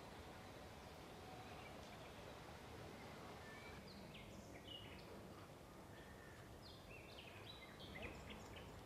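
Faint outdoor background hiss with small birds chirping, two brief runs of short high chirps a few seconds apart.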